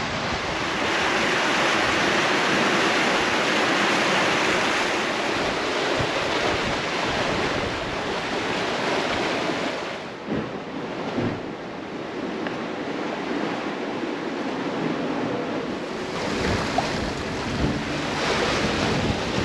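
Sea water rushing and splashing along a sailing catamaran's hull in choppy seas, with wind buffeting the microphone. The rush dies down about halfway through and picks up again near the end.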